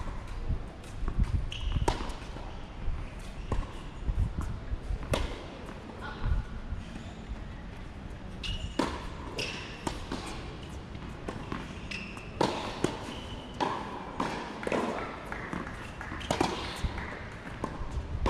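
Tennis balls struck by rackets and bouncing on a hard court during a rally, as many sharp pops at uneven intervals.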